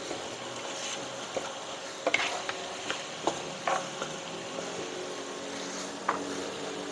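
Wooden spatula stirring a simmering pork-rib and potato curry in a nonstick frying pan: soft scraping and a handful of light knocks on the pan, most of them between about two and four seconds in, over the steady sizzle of the curry.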